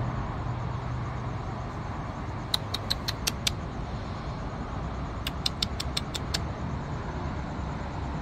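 Two quick runs of short, sharp clicks, about six in each and a couple of seconds apart, over a steady low rumble.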